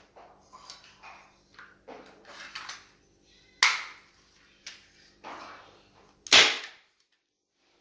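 Hand staple gun firing twice, two sharp snaps about two and a half seconds apart, the second louder, among lighter clicks and clatter of handling the tool.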